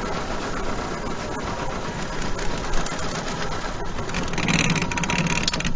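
Boat's outboard motor running steadily, with a louder stretch near the end.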